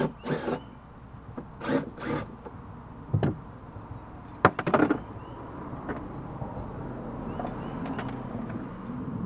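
Short clunks and scrapes of metal hardware being handled and pulled off: about four brief clatters in the first five seconds, then a faint steady hum.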